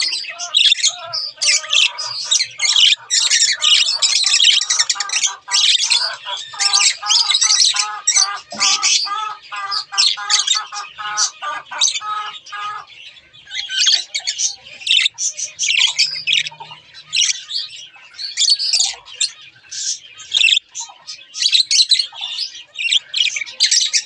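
Budgerigars warbling and chattering: a continuous stream of rapid high chirps and squawks, with a run of fast, evenly repeated lower notes from about six to thirteen seconds in.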